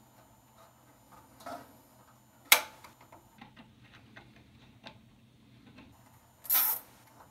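Nylon cable ties being fastened around a wire harness: small plastic clicks and ticks, one sharp snap about two and a half seconds in, and a short ratcheting zip as a tie is pulled tight near the end.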